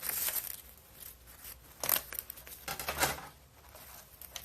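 Crinkly handling noises with sharp crackles near the start and about two and three seconds in, as a MacBook Pro hard-drive flex cable is bent into place.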